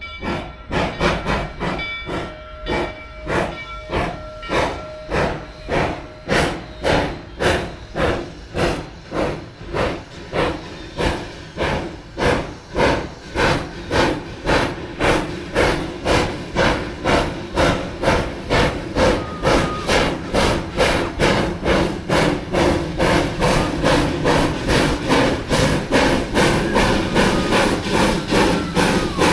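Rio Grande Southern No. 20, a narrow-gauge steam locomotive, working under steam: an even rhythm of exhaust chuffs, about two to three a second, with a deeper rumble building as it draws near. A thin steady tone sounds under the chuffs for the first several seconds.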